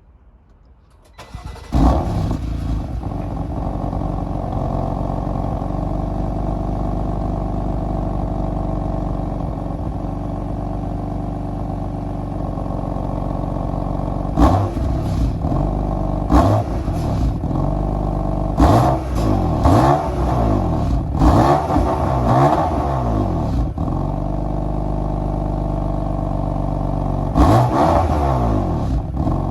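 BMW M4's twin-turbo straight-six starting about a second and a half in with a loud flare of revs, then settling to a steady idle. About halfway through it is revved repeatedly, short sharp rises in pitch that fall back each time, idles again briefly, and is revved a few more times near the end.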